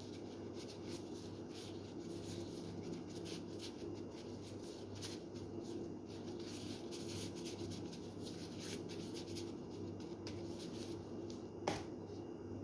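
Food frying in a pan with a little oil: faint, continuous crackling and sizzling over a steady low hum, with one sharp clack near the end.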